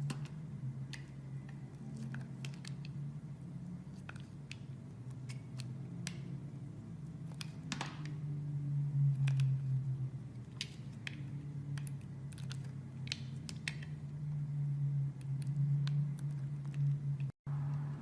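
A blade cutting into bar soap, making irregular crisp clicks and crunches over a low steady hum. The sound cuts out for an instant near the end.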